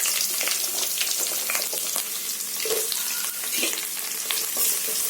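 Shallots and garlic frying in sesame oil in a kadai, sizzling steadily, with a spatula stirring and scraping the pan in short strokes now and then.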